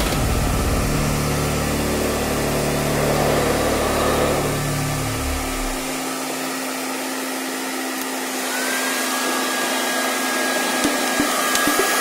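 Handheld hair dryer (Valera Vanity) blowing air steadily into a washing machine drum. A low hum underneath stops about halfway, a steady high whine joins about two-thirds of the way in, and there are a few light knocks near the end.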